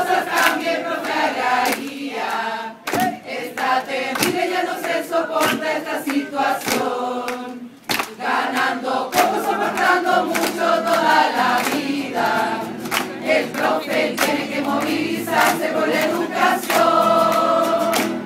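A large mixed group of mostly female voices singing a song together in Spanish, with sharp hand claps on the beat and acoustic guitar accompaniment. A long held chord comes near the end.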